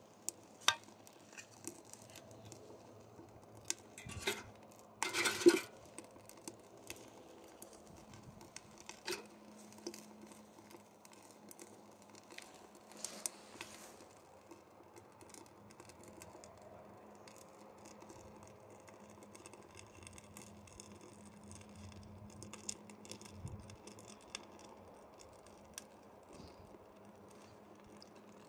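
Small wood fire crackling inside a homemade beer-can wood stove, with scattered sharp snaps and pops. There is a louder burst of noise about five seconds in.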